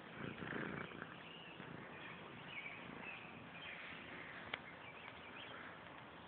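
Faint outdoor quiet with distant birds chirping now and then, and a short rustle in the first second.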